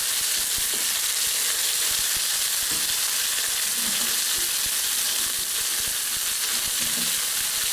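Pieces of beef tenderloin searing in hot oil in a wok: a steady sizzle with scattered crackles as the meat is left to brown on one side.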